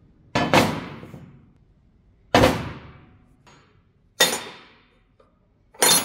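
Heavy pieces of scrap steel (a rusty square tube, a leaf spring and a large open-end wrench) set down one after another on a steel-topped workbench. There are four metallic clanks about two seconds apart, the first a quick double knock, each ringing and dying away over about a second.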